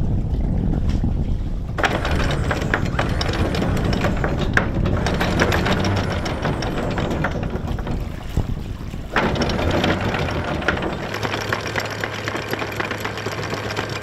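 Catamaran's anchor windlass paying out chain: a continuous metallic rattle that starts about two seconds in, breaks off briefly around nine seconds and runs on again, over a low rumble.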